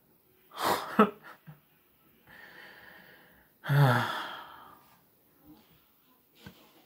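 A man's wordless vocal sounds: a voiced sigh about half a second in, a breathy exhale, then a longer sigh about four seconds in that falls in pitch.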